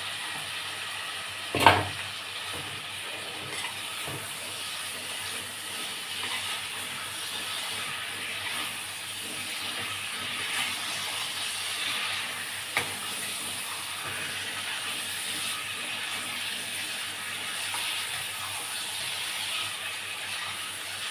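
Chicken pieces sizzling in a pan of fried onion and spice masala, a steady frying hiss. A sharp knock comes near two seconds in and a fainter one later.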